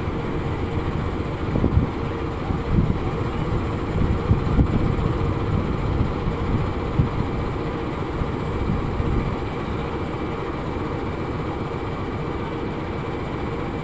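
CC206 diesel-electric locomotive running at a standstill, a steady engine hum with a held tone, coupled to a wagon. Low gusts of wind on the microphone during roughly the first two-thirds die down near the end.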